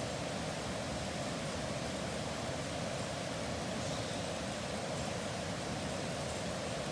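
Pot of water boiling on a camp stove: a steady hiss and rumble without a break.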